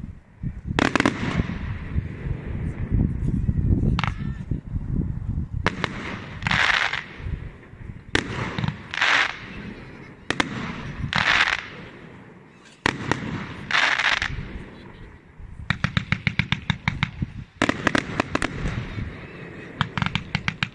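Fireworks display: aerial shells bursting with sharp bangs and a low rumble, with several short hissing bursts between them. In the second half, rapid strings of crackling pops, several a second, come in two long volleys.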